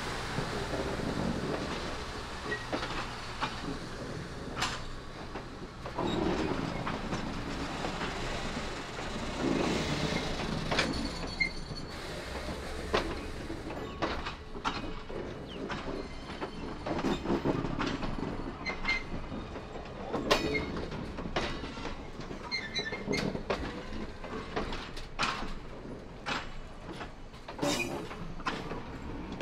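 Passenger train cars rolling past, their wheels clicking irregularly over the rail joints with a steady low rumble and a few short wheel squeals.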